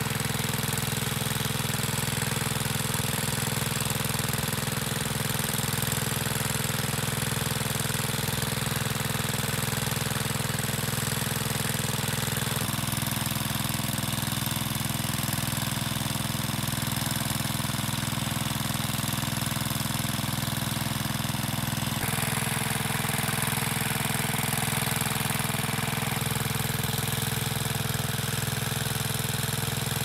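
Small engine-driven water pump running steadily, drawing water out of a pond through a suction hose. Its hum shifts abruptly in tone twice, about 13 and 22 seconds in.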